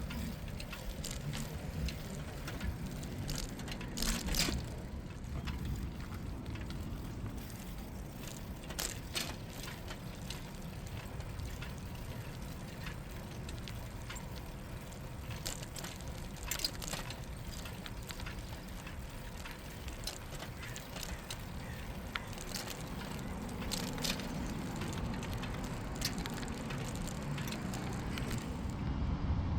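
Bicycle being ridden on a paved path: a steady low rumble of tyres and wind, with scattered sharp clicks and ticks, the loudest about four seconds in.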